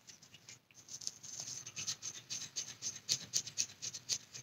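Light, quick scratching and scraping of plastic tools and containers handled while a pigmented resin color is prepared, thickening from about a second in.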